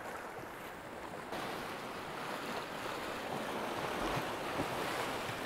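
Sea swell washing against rocks: a steady rushing surf that grows a little louder about a second in, with some wind on the microphone.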